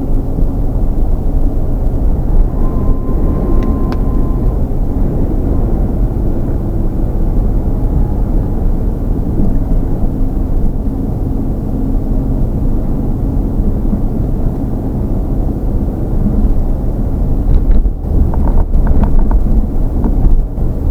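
Car driving at about 50 km/h: a steady low rumble of road and engine noise, with a few light clicks near the end.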